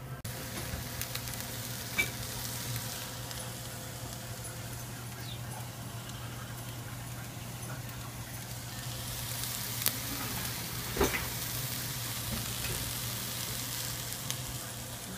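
Ground turkey and onions sizzling as they fry in a skillet, over a steady low hum. A few sharp clicks stand out, about two seconds in and twice near ten and eleven seconds.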